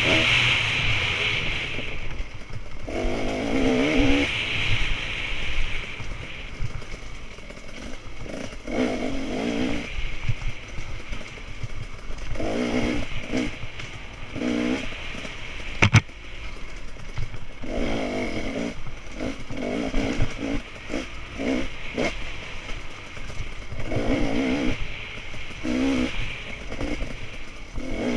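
Dirt bike engine heard from the rider's helmet, revving up and dropping back again and again as it is ridden hard over rough trail, with steady wind and road noise. A single sharp knock sounds about halfway through.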